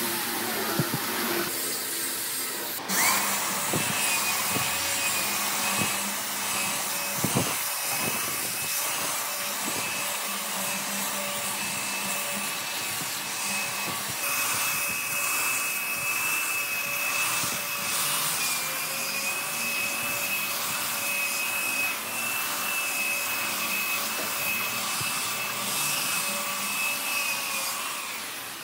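Makita electric belt sander spinning up about three seconds in, then running steadily with a high motor whine as its belt sands across a pine tabletop.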